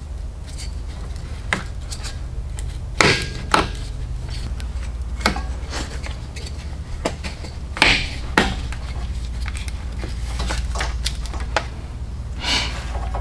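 Scattered clicks and knocks of metal parts and tools being handled during truck reassembly, over a steady low hum.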